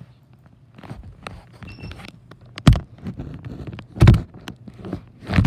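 Handling noise from a phone being carried: scattered knocks and rubbing against the microphone, with three louder thumps spaced a little over a second apart, the last near the end.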